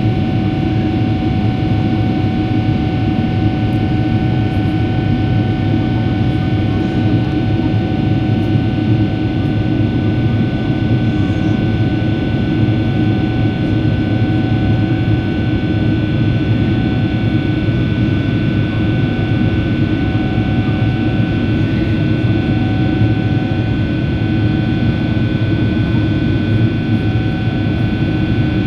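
Cabin noise inside a Boeing 777 in the air: the jet engines and airflow make a loud, steady roar, with several steady whining tones over it.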